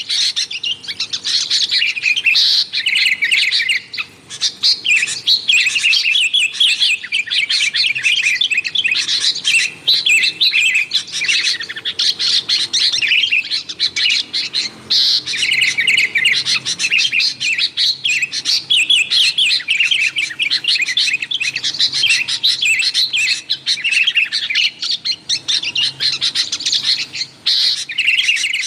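Sooty-headed bulbuls (kutilang) giving a noisy, agitated run of quick chirping calls without pause, the excited chatter used to lure wild bulbuls.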